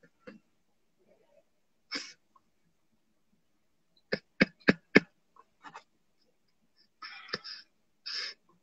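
Close-up sounds of a person between words, with no speech: a short hissing breath about two seconds in, a quick run of four sharp clicks a little past the middle, then two more hissing breaths near the end.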